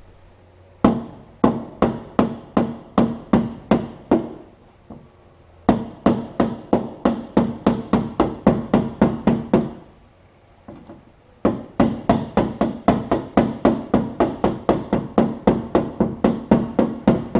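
Hammer tapping on a 1946 Chevy's steel rear fender panel, about three blows a second, each leaving a short metallic ring, easing out the remaining dent. The blows come in three runs with two short pauses between them.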